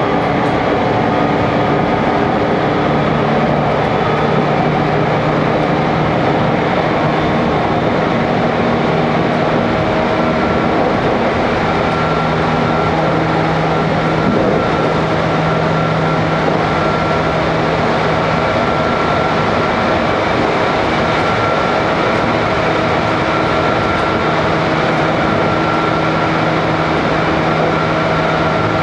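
Cabin running noise of a JR Kyushu 813 series 100 subseries electric train under way: a steady rumble of wheels on rail, with a few steady tones running through it.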